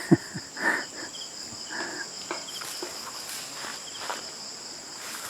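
Crickets chirring in a steady, even high-pitched drone, with a sharp thump just at the start and a few faint distant sounds.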